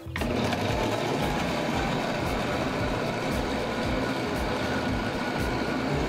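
Countertop blender motor starting suddenly and running steadily at one speed, blending a liquid mix of milk, eggs, sugar and crumbled cookies into flan batter.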